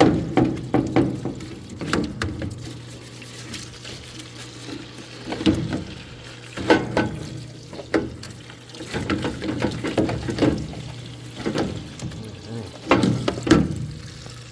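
Liquid splashing and running in a parts washer as a greasy part is scrubbed and rinsed in degreaser, in uneven bursts over a steady low hum.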